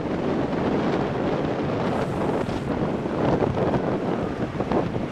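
Wind buffeting the microphone of a camera moving along the road: a steady, gusty rushing noise, with vehicle and road noise underneath.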